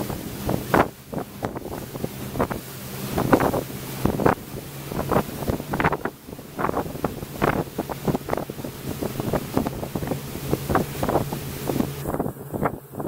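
Tow boat's engine running steadily at speed, with wind buffeting the microphone in irregular gusts and the rush of water from the wake.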